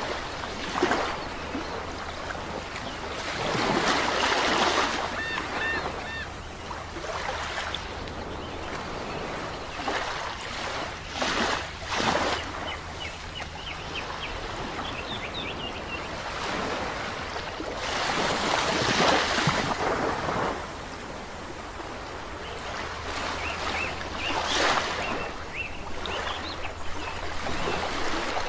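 Sea waves washing onto a shore, surging loudly every few seconds. Birds call in short, high, repeated notes over them several times.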